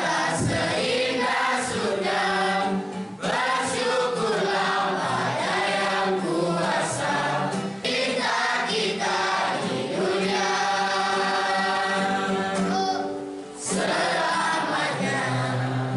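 A large group of children and teenagers singing a song together as a choir, with short breaks between phrases about three seconds in and near the end.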